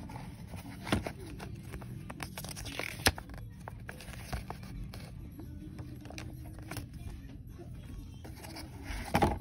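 Paper instruction manual and warranty card handled over an open cardboard box: rustling and scraping of paper, with sharp clicks about a second in, about three seconds in and just before the end.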